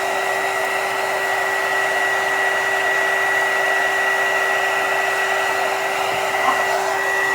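Handheld hot-air blower running steadily, a loud rush of air with a steady whine, blowing over a shrink-wrap sleeve on a sublimation tumbler to shrink it tight.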